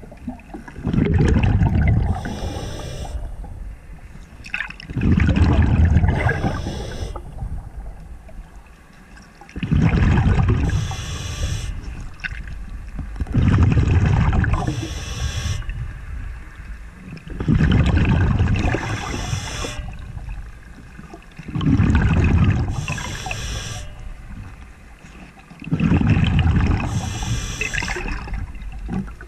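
A diver breathing through a regulator underwater, a breath about every four seconds. Each exhale is a loud rumbling gush of bubbles, and each cycle also has the high hiss of the regulator's airflow. Seven breaths.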